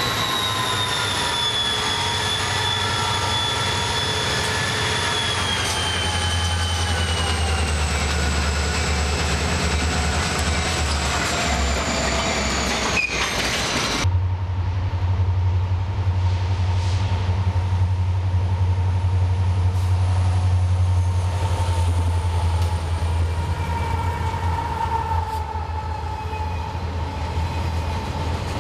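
Freight train rolling past, a low rumble of engines and wheels under high steady squealing tones that slowly sink in pitch. About halfway through the sound cuts abruptly to a second freight train, container cars rolling past with a louder, deeper rumble and a steady whine.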